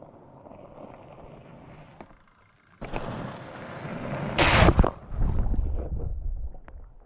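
Mountain bike riding past close on a gravel trail: tyres on gravel grow louder from about three seconds in to a loud rush as the bike passes, about four and a half seconds in, followed by a low rumble.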